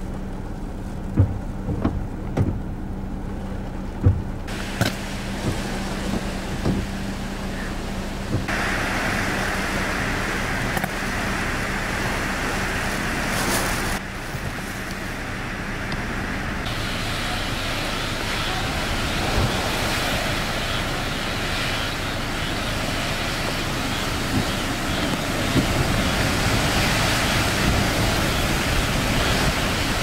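Hurricane-force wind and driving rain, a continuous rushing noise that changes abruptly in character several times. A steady low hum runs under the first half, and a few sharp pops come in the first few seconds.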